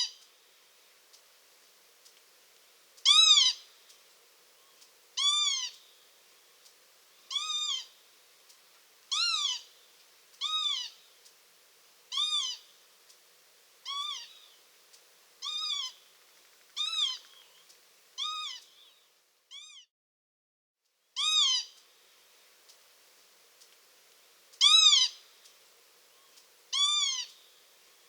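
Northern lapwing giving its plaintive, shrill 'kie-wit' call over and over. Each call is short and rises then falls in pitch, coming every second or two, with a short pause about two-thirds of the way through.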